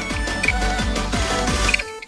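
Background music with a steady, fast beat, about four beats a second. The beat and bass drop out near the end, leaving a few higher notes.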